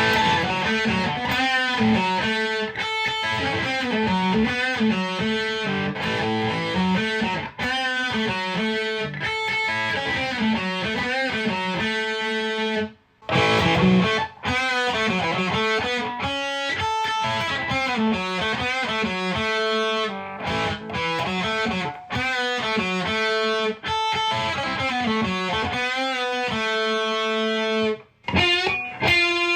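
Humbucker-equipped electric guitar played through a Marshall DSL-1 amp and a Blackstar 2x12 cabinet with overdrive, playing a riff of single notes and chords. The playing stops briefly about 13 seconds in and again just before the end, then picks up again.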